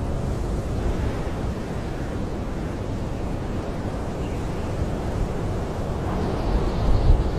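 Blizzard wind blowing steadily with a deep rumble, swelling into a stronger gust near the end.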